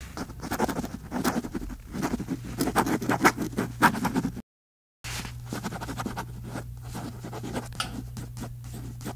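Pencil drawing on paper: quick scratchy strokes as lines are sketched. The sound cuts out completely for about half a second around the middle and resumes softer.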